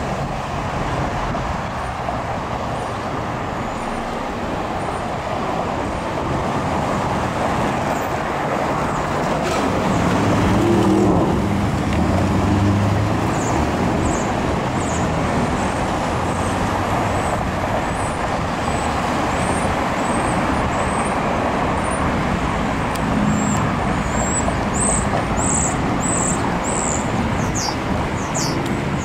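Road traffic: cars passing with steady tyre and engine noise, one vehicle louder about ten seconds in. Short high bird chirps join in the second half and come faster near the end.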